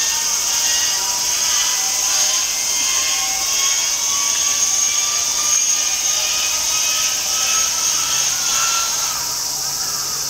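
Rising whine of the Zero fighter's inertia starter spinning up before it engages the Sakae radial engine, the pitch climbing slowly. A steady high-pitched hiss runs underneath, and a low hum joins near the end.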